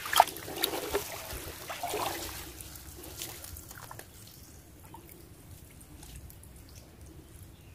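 Muddy water splashing and sloshing around a hand groping in a flooded hole for fish, with trickling and dripping. A few sharp splashes come in the first three seconds, the strongest just after the start, then it settles to faint dripping.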